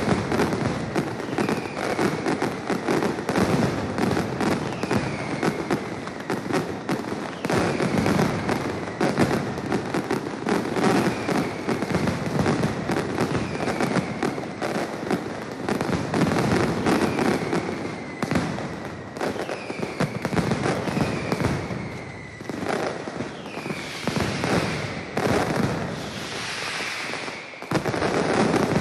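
Mascletà firecrackers going off in a dense, continuous barrage of rapid cracks and bangs, with short falling whistles every second or two above the crackle. Near the end the barrage thins for a moment, then surges loud again.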